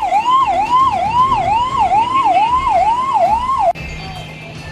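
Fire engine's electronic siren sounding a fast repeating sweep, up and down about two and a half times a second. It cuts off suddenly near the end, leaving a low steady hum.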